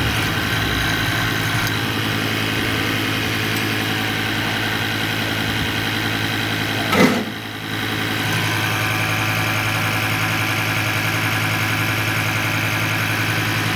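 Diesel injection pump test bench running with a Denso injection pump from a Toyota Land Cruiser on it, a steady mechanical drone while the pump is checked. About seven seconds in there is a short loud swoosh, and the drone dips for about a second before it comes back.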